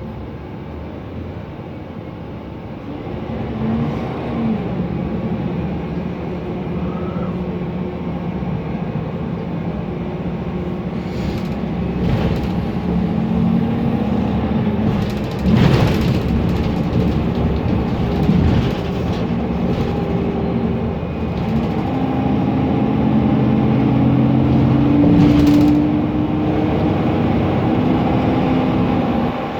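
Mercedes-Benz Conecto NGT city bus running on its OM 936 G natural-gas engine, with its loud cooling fan. The engine note shifts up and down in steps and grows louder as the bus pulls away and gathers speed, with a brief knock about halfway through.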